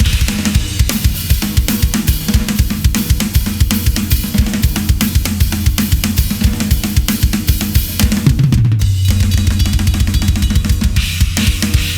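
Drum kit played in a busy groove with cymbals and bass drum, showcasing a Ludwig Raw Brass 14x6.5 snare drum in a tighter tuning. A little after 8 s a low tone slides down in pitch and holds for about three seconds under the drumming.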